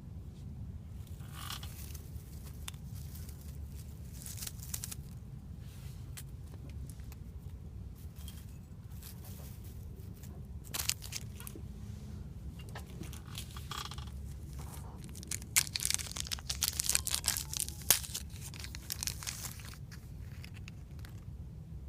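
Hands tearing, scraping and crinkling fire-starting materials such as tinder, in irregular spells, with a louder flurry of sharp scrapes and clicks about three quarters of the way through.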